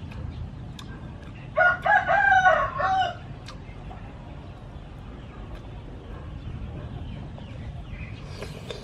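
A rooster crowing once: a single loud call of about a second and a half, starting about a second and a half in.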